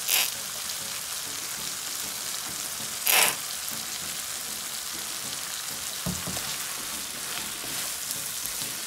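Sliced bell peppers and onions sizzling steadily in sauce in a frying pan, with two short, louder bursts about three seconds apart. Near the end a wooden spoon stirs the pan.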